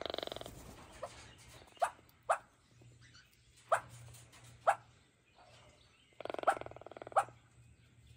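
Keel-billed toucan calling: a series of short, sharp croaking notes spaced about half a second to a second and a half apart, with a longer rasping, rattling croak at the start and another about six seconds in.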